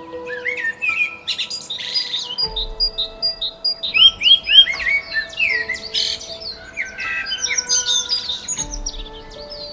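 Birds chirping: a dense run of short, quick high chirps that rise and fall, over background music with long held notes.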